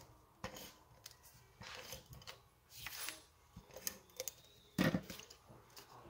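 Card stock being handled and slid about on a craft cutting mat: scattered soft rustles and light clicks, with one louder knock about five seconds in.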